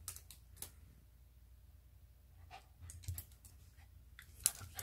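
A small dog moving about on a wooden floor: scattered sharp clicks and taps of its claws, a few early on, a cluster around the middle and a quicker, louder run of taps near the end.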